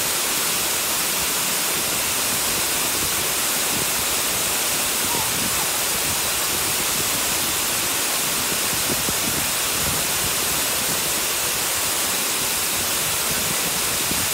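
Tall two-tiered waterfall pouring over a rock cliff and a lower ledge: a steady, unbroken rush of falling water with a bright hiss.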